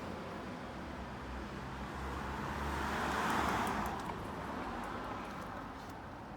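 A car driving past, its tyre and engine noise swelling to a peak about three seconds in and then fading away; no horn sounds.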